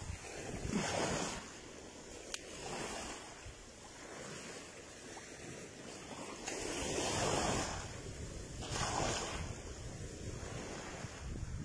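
Choppy sea waves washing in against the shore, rising and falling in several surges, the loudest about two-thirds of the way through, with wind rumbling on the microphone.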